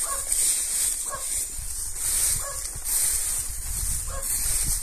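A dog barking, short single barks a second or two apart, over a steady high hiss and a low rumble.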